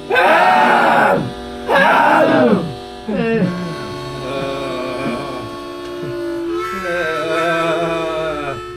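Several voices wailing together in long swoops that rise and fall in pitch about once a second, then settling into long held notes with a wavering vibrato, a group following a leader's voice.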